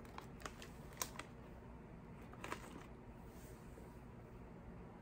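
Faint crinkles and rustles of a potato chip bag being handled as chips are taken out: a few soft clicks in the first three seconds, then only quiet room hum.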